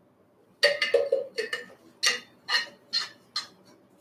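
Metal water bottle handled after a drink: a run of about eight light clicks and knocks at uneven spacing, starting about half a second in and lasting some three seconds.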